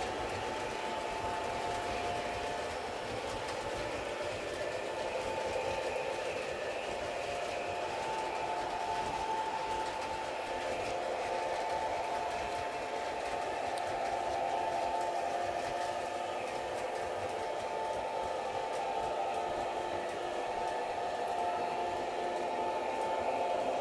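O gauge model trains running on a three-rail layout: a steady electric motor whine, with the rolling noise of the wheels on the track.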